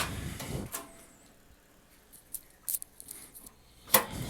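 Sparse light clicks and taps from handling a measuring tape against a plastic tool box, with one sharper click about four seconds in.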